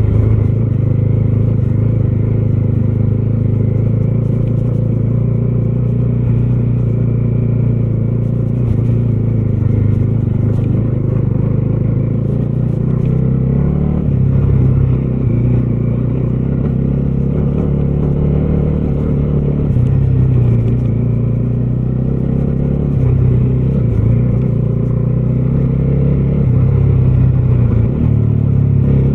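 Bajaj Dominar 250's single-cylinder engine running while the motorcycle rides along the road. Its pitch steps up and down a few times with throttle and gear changes.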